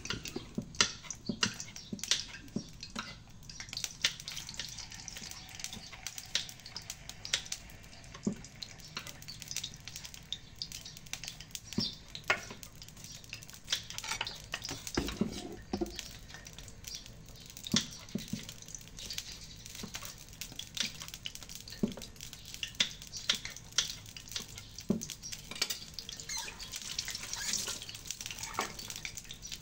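Kitchen work: irregular clinks and knocks of utensils against dishes and pans over a steady hiss.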